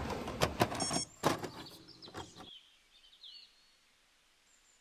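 Restaurant background din with several sharp clinks of cutlery on plates, fading out about halfway through into near silence.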